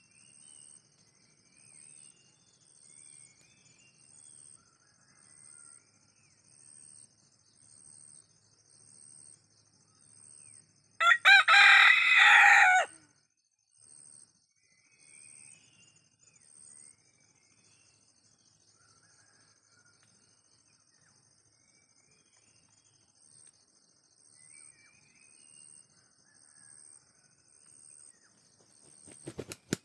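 An ayam kampung (Indonesian native village chicken) rooster crowing: one loud crow of about two seconds, roughly eleven seconds in, and a second crow starting near the end.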